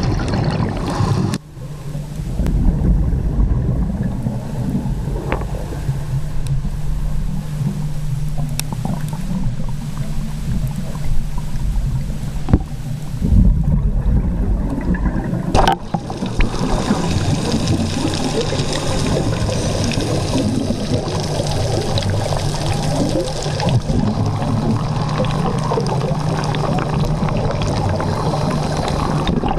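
Underwater sound picked up by a camcorder in a dive housing: a steady low drone with bubbling from scuba divers' exhaled air and a few sharp clicks. The sound changes abruptly about a second and a half in and again about sixteen seconds in.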